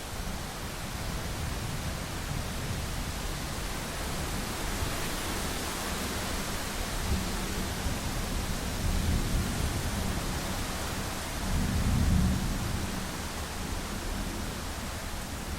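Steady rain hiss with low, rolling thunder rumbling beneath it, swelling briefly about two-thirds of the way through.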